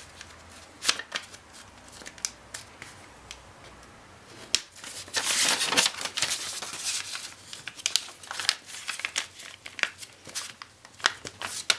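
A sheet of origami paper being folded and creased by hand: rustling paper with sharp, crisp strokes as creases are pressed flat. Only a few light clicks at first, then busier rustling and creasing from about five seconds in.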